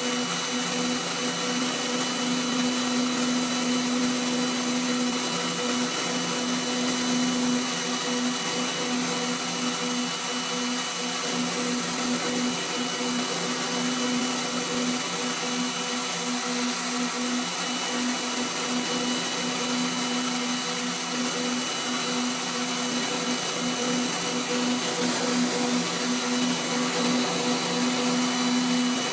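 Waldown tool post grinder running at speed, its small wheel grinding inside the bore of a collet chuck body spinning in the lathe. A steady motor hum with a thin high whistle and a hiss of grinding.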